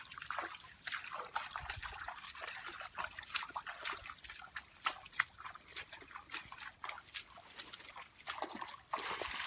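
Bare feet wading through shallow muddy water, with irregular small splashes and sloshes and water trickling, a little louder near the end.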